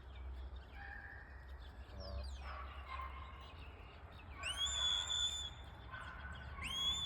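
Shepherd's whistle commands to a working stock dog: a falling whistle about two seconds in, then two whistles that rise and hold steady, one about four and a half seconds in and one near the end.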